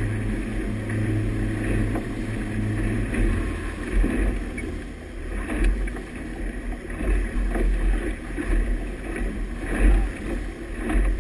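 Motorboat under way: a steady engine hum over rushing wake water, with low buffeting thumps from wind and water. The hum drops lower about three seconds in.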